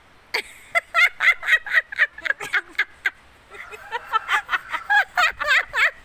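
A woman laughing hard in quick repeated bursts, with a short pause about three seconds in.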